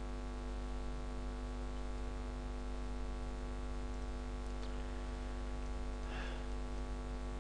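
Steady electrical mains hum with a stack of evenly spaced overtones, at a low level. A faint soft sound comes about six seconds in.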